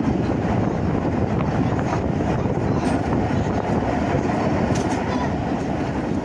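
Narrow-gauge steam train hauled by No.13 Kissack running along the track, a steady rolling noise of the train on the rails.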